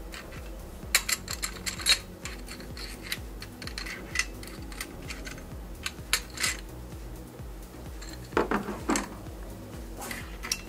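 Light metallic clinks and clicks of loose bolts and camshaft bearing caps being lifted off and handled on the engine's cylinder head. A quick run of sharp clinks comes about a second in, more around six seconds, and a duller clatter of several knocks around eight and a half seconds in.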